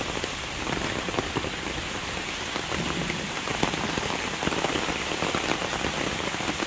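Rain pattering steadily on an umbrella held overhead, a dense run of small drop impacts.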